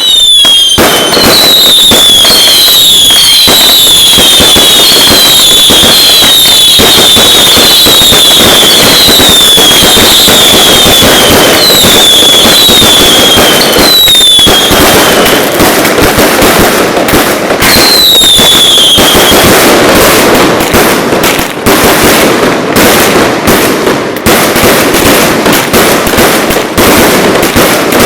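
Ground fireworks going off: a run of high whistles, each sliding down in pitch and repeating about once a second, over a dense, steady crackle. The whistles stop about halfway through, with one more a little later, leaving rapid sharp crackling and bangs.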